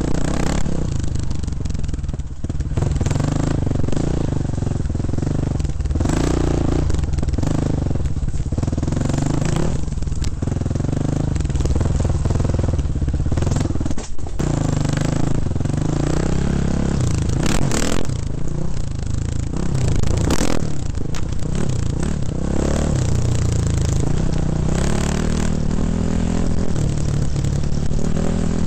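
Dirt bike engine revving up and down over and over as the bike is ridden along a rough trail, with knocks and clatter from the bike jolting over bumps.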